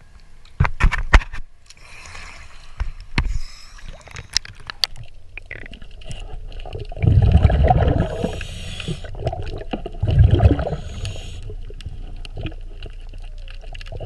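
Underwater water noise with a few sharp knocks near the start, then two loud, low rumbling bursts of a diver's exhaled air bubbles, about three seconds apart.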